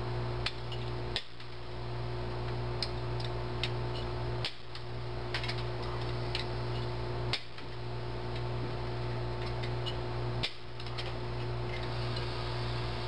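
Hand nibblers cutting a thin strip of brass: irregular sharp metallic clicks as the jaws bite, over a steady low hum.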